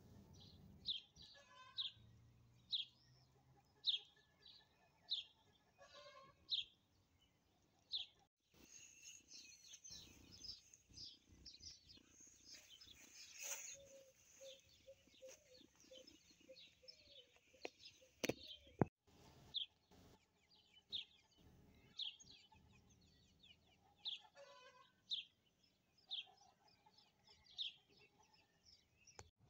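Small birds chirping: single short, high chirps repeating about once a second, with busier chirping from more than one bird in the middle stretch.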